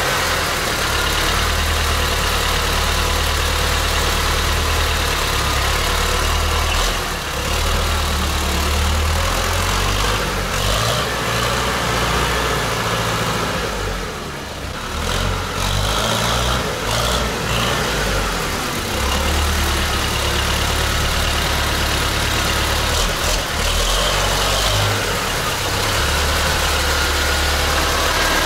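T-40 tractor's air-cooled two-cylinder diesel running steadily, loud, just brought back to life after standing about four months. The engine sound eases off briefly a little past halfway, then comes back.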